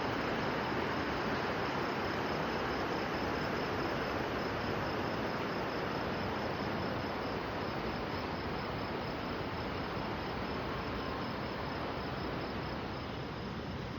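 Steady rush of river water, with crickets chirring in an even, rapid pulsing rhythm above it.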